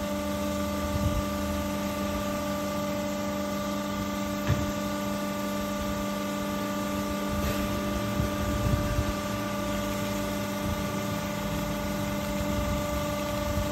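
Hydraulic sausage stuffer's pump motor running with a steady hum as sausage meat is pushed out through the nozzle into the casing. A faint knock comes about four and a half seconds in.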